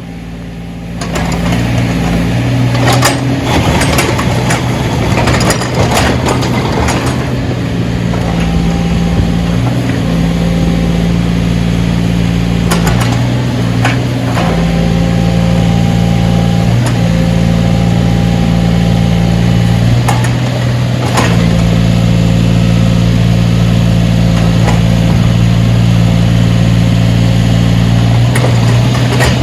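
Backhoe's diesel engine running steadily, with a higher whine that comes and goes as it works and several sharp clanks and knocks, most of them in the first few seconds.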